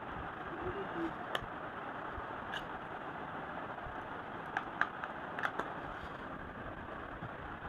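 A handful of small, sharp clicks from handling small objects, bunched in the middle of the stretch, over a steady background hiss.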